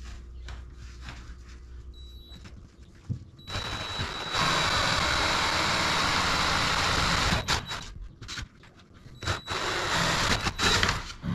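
Cordless drill boring through a Jeep Gladiator's fiberglass hardtop with a half-inch bit: a short blip of the motor, then a steady high motor whine with loud cutting noise for about four seconds, and two brief bursts near the end.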